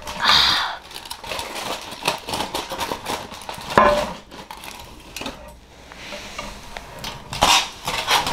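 Aluminium foil crinkling and rustling as it is unwrapped from a plate of food, with a few sharper knocks of the plate against a glass baking dish.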